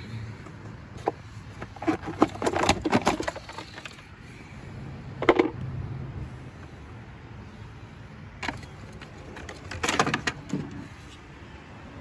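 Handling noise from a handheld phone: fingers rub and knock against the body near the microphone, in irregular clusters of clicks over a low steady hum.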